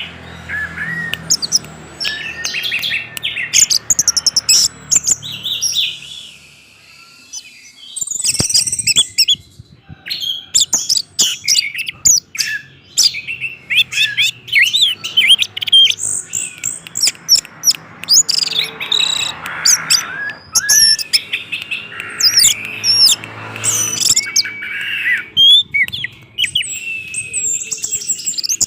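Orange-headed thrush (anis merah) singing a long, varied song of quick high whistled and chattering phrases mixed with sharp clicks, with a short lull about six seconds in.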